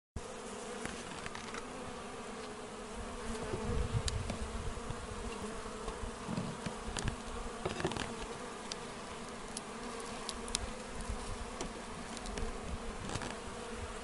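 A honeybee colony buzzing: a steady hum of many bees, with a few light clicks scattered through.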